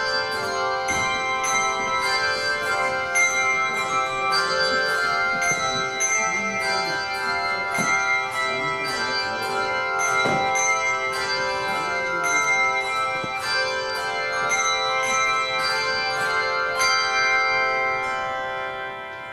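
Handbell choir ringing a processional, with chords of overlapping bell tones struck about twice a second and left to ring. Near the end the last chord fades away.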